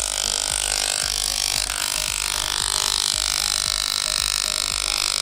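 Corded electric hair clipper with a comb guard running with a steady buzz as it is pushed through a dog's long fur.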